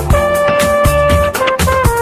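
Instrumental break of a pop dance song: brass playing a long held note over a steady drum beat.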